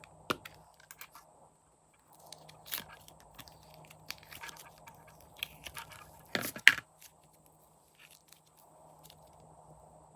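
Slime being worked by hand, giving scattered sticky clicks and crunchy pops. The loudest cluster comes a little past halfway.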